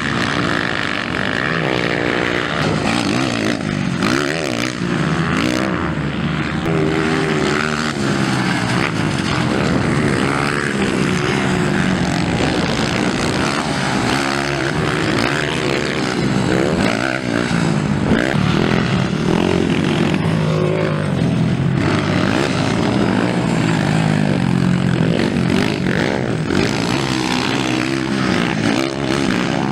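Several motocross dirt bike engines revving hard, pitch rising and falling again and again as they accelerate and shift around the track.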